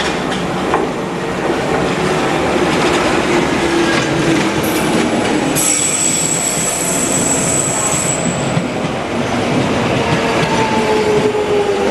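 London Underground Jubilee line 1996 Stock train running along the platform, its wheels rumbling and clattering over the rails. A falling whine comes twice, and a high, steady squeal sounds for about three seconds in the middle.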